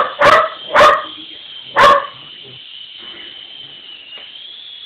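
A dog barking four times in the first two seconds, loud sharp barks, then falling quiet. Underneath is the steady high whine of a small toy helicopter's electric motor, wavering slightly in pitch.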